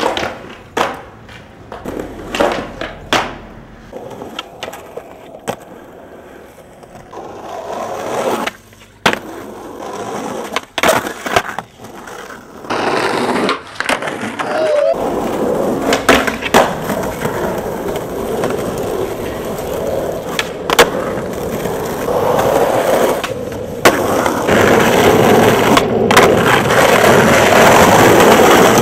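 Skateboards rolling over concrete and asphalt, with repeated sharp pops, clacks and landings from tricks. The rolling grows louder and steadier through the second half, loudest in the last few seconds.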